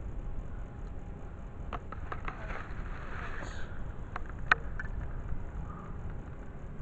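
Wind rumbling on the microphone, with rustling and a few sharp clicks from handling; the loudest click comes about four and a half seconds in.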